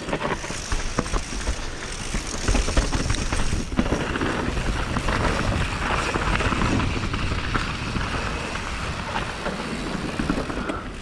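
Mountain bike descending a rocky dirt trail at speed: knobby tyres crunching over dirt and stones, and the bike knocking and rattling over rocks and roots, with a steady rumble of wind on the microphone.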